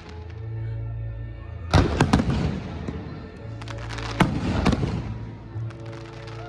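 Aerial firework shells bursting with sharp bangs: a quick cluster of three about two seconds in and two more about four seconds in, each trailed by crackling. Music plays underneath with a steady low note.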